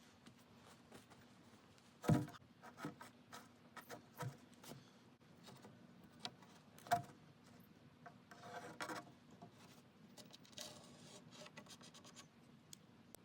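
Intermittent scraping and rubbing with light knocks, the loudest knocks about two seconds in and near seven seconds, over a faint steady hum.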